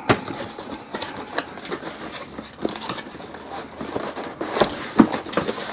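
Cardboard box being opened by hand: flaps pulled and folded back, giving scraping and rustling with a string of light clicks and taps, and a sharper tap about five seconds in.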